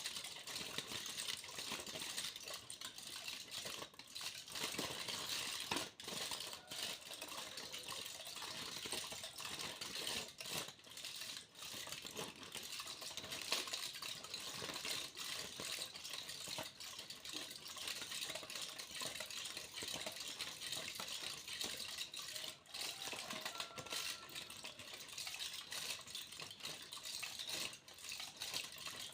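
Aluminium foil being crinkled and crumpled, a continuous crackle peppered with sharp little clicks.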